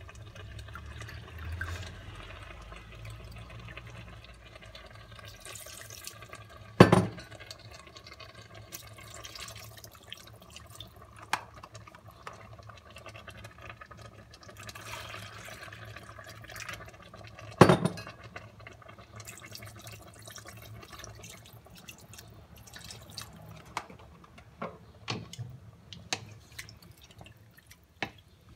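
Water pouring and dripping from a carton into a stainless steel pot of green beans, with two sharp knocks about seven and eighteen seconds in. Smaller clicks and knocks near the end as a wooden spoon stirs the pot.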